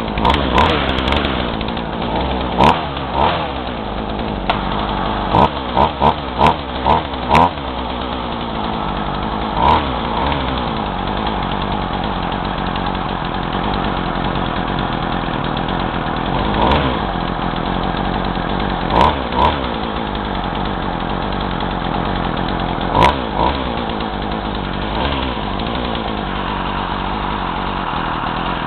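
Craftsman two-stroke chainsaw idling, with the throttle blipped in short bursts, a quick run of them about six seconds in and single ones later, the revs dropping back each time. The owner says it bogs whenever the throttle is squeezed and suspects the carburetor setting.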